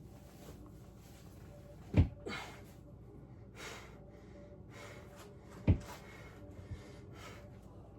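Two low thuds about three and a half seconds apart, with a person's breathing puffing audibly around them.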